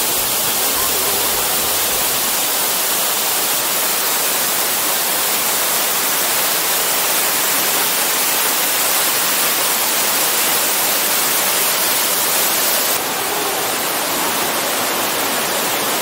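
Waterfall rushing, a loud, steady noise of falling water. About thirteen seconds in it drops slightly in level and changes to the rush of a rocky mountain stream.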